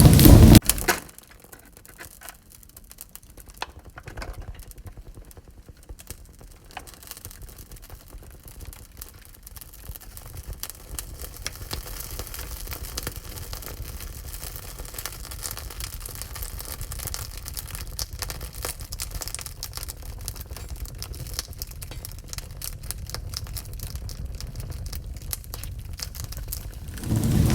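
Wood fire crackling in a wood-burning stove, with scattered small pops and snaps over a low steady rumble. A loud rushing noise stops about a second in and comes back near the end.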